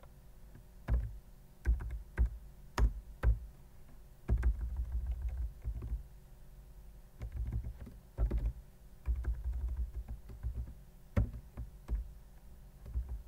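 Computer keyboard typing: scattered single keystrokes and short runs of keys.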